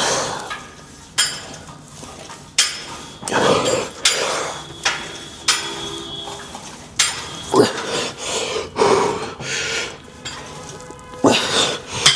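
Metal gym weights clanking, a dozen or so sharp knocks at uneven intervals, some ringing briefly, as weight is dropped for a drop set.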